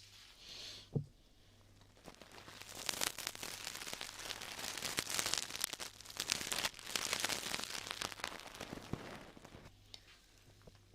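Close-miked ASMR mouth sounds: a dense, continuous run of wet, crackly clicks, lasting about eight seconds and stopping shortly before the end. A short low thump comes about a second in.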